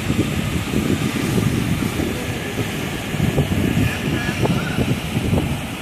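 Brown floodwater pouring over the weir of a full, overflowing reservoir: a steady rushing roar, with wind buffeting the microphone.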